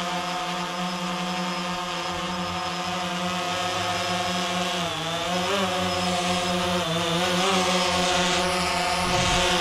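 Quadcopter drone hovering low, its propellers giving a steady buzzing hum whose pitch dips and rises as it manoeuvres, growing a little louder over the second half.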